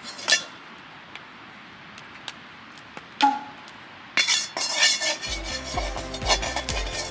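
Metal cookware and utensils clinking: two sharp ringing clinks, then a denser clatter from about four seconds in. Background music with a beat comes in near the end.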